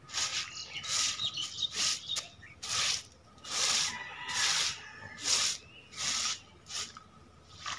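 Short hand broom swishing over wet cow-dung slurry, spreading a dung wash across the ground in repeated strokes, a little more than one a second.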